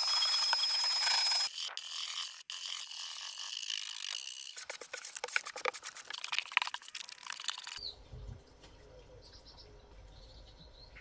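Vacuum cleaner running with a steady high whine. About a second and a half in it drops in level and pitch, and the nozzle crackles as it sucks up debris from a plywood floor. For the last few seconds there is only quiet outdoor ambience with a few faint bird chirps.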